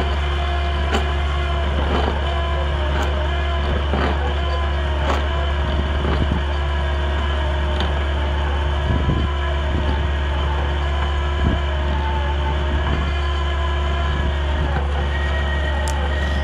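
Mini excavator's diesel engine running steadily under load, driving a hydraulic Rotop stump drill that bores into a tree stump. Irregular sharp cracks and knocks, about one every second or two, come from the cutter tearing through the wood.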